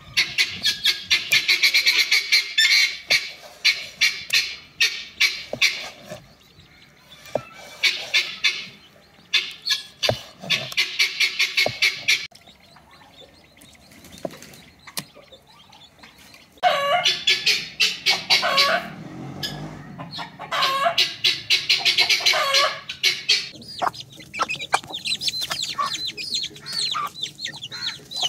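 Chickens clucking and cackling in runs of rapid calls a few seconds long, with short pauses between them.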